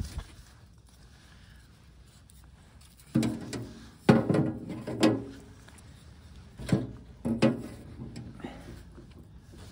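Knocks and clunks from a steel camping wood stove as a hand handles something inside its open firebox, about four in all, the loudest around four seconds in with a short ringing tail.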